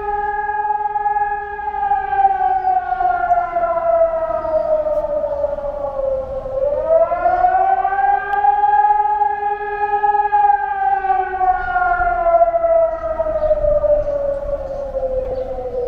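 Civil defence air raid siren wailing: a two-tone pitch that holds, sinks slowly, swings back up about six seconds in, holds, and sinks again. It is sounding the air raid warning of a national air defence drill.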